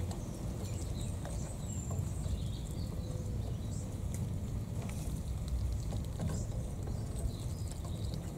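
Indian Runner ducklings peeping faintly now and then, a few short high chirps scattered through, over a steady low rumble.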